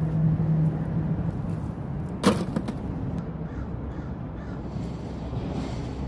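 A single short, loud bird call about two seconds in, with fainter calls near the end, over a steady background hiss.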